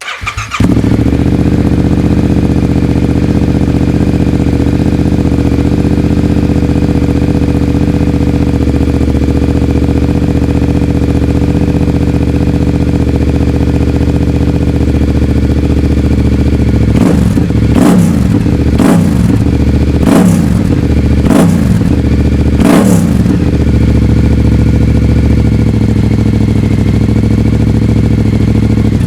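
A 2022 Yamaha MT-07's 689 cc parallel-twin engine, breathing through a full MIVV Delta Race exhaust with no catalytic converter, starts up just after the beginning and settles into a steady, loud idle. Past the midpoint it gets a series of five or six quick throttle blips that rise and fall, then returns to idle.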